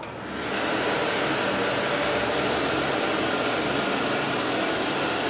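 JetAir Automatic sensor-operated wall hand dryer switching on as hands go under it. The blower comes up to full within about half a second, then runs as a steady rush of air.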